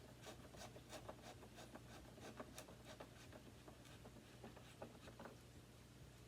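Faint, irregular light clicks and scraping, a few a second, from hand work with screws and the plastic housing of a Hoover WindTunnel 2 upright vacuum being reassembled.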